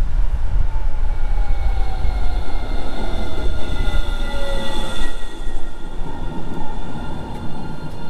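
Electric city tram pulling into a stop: a steady low rumble of the car on the rails, with a whine that falls in pitch as it slows to a halt.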